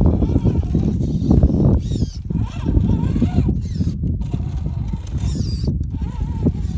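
Radio-controlled off-road crawler working over granite boulders: a heavy, rough rumble of tyres and drivetrain grinding on rock, with the motor giving short rising and falling whines as the throttle is worked.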